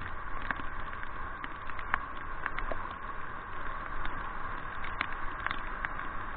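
Shallow river water rushing over a stony riffle under a raft, with irregular sharp ticks of water drops striking the camera housing.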